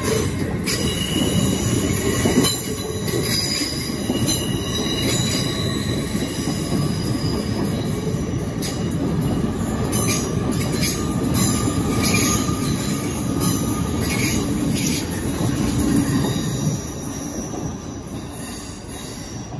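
Great Western Railway Class 800 IET train pulling out past the platform: a steady rumble of wheels on rail, with high wheel squeal coming and going and a few sharp clicks. It grows quieter near the end as the train draws away.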